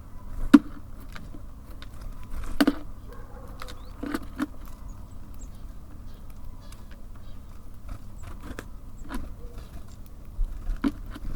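Small birds at a bird feeder: sharp taps and knocks, irregular and a second or more apart, the loudest about half a second in. A steady low rumble runs underneath.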